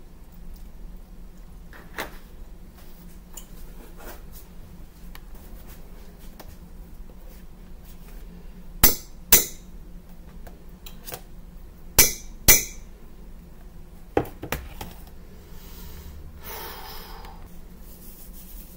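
Kitchen utensils knocking and clinking against a stainless steel saucepan: two pairs of sharp knocks about nine and twelve seconds in, a couple of lighter taps a little later, and a short scraping rustle near the end.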